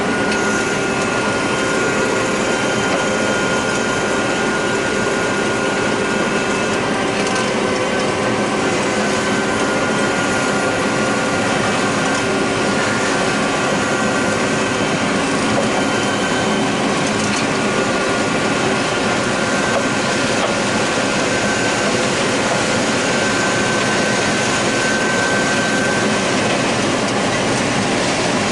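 John Deere 9600 combine running steadily while harvesting corn, heard from inside the cab: a constant machine drone with a few steady whining tones over it.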